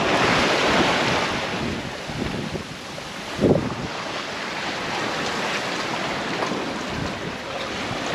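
Wind buffeting the microphone and waves rushing and breaking along the hull of a sailing yacht close-hauled in rough seas. The rush is loudest at the start, and there is a single low thump about three and a half seconds in.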